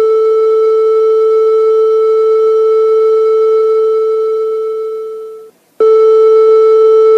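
A loud, steady electronic tone with a row of overtones above it. It fades away about five seconds in, drops out for a moment, then cuts back in suddenly at full level.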